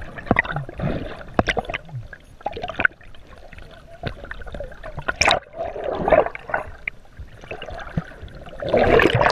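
Water sloshing and gurgling around a camera held just below the surface, heard muffled through its housing, with scattered sharp clicks and knocks.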